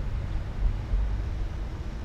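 Outdoor ambience: a low, uneven rumble with a faint steady hiss over it and no distinct event.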